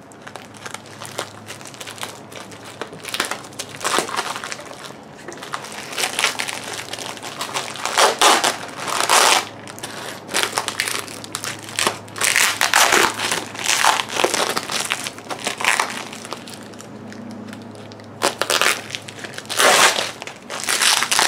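Plastic stretch wrap and bubble wrap crinkling and crackling in bursts as it is cut with a razor blade and pulled off new bumper overriders.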